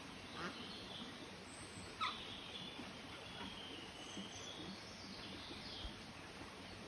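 Newly hatched ducklings peeping in a run of short, high calls that slide in pitch, with a louder short call from the brood or the mother duck about two seconds in.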